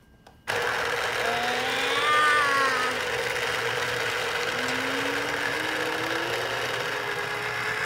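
Small electric citrus juicer's motor running while an orange half is pressed onto its spinning reamer cone. It starts suddenly about half a second in and then hums steadily, with a whine that wavers up and down in pitch.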